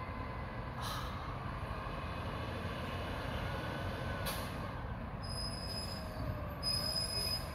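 Garbage truck's diesel engine running as the truck rolls slowly along the street, with a short hiss of the air brakes about a second in and again about four seconds in.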